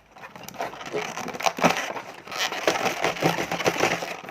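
A door lock's parts being handled: dense, irregular clicking and rustling.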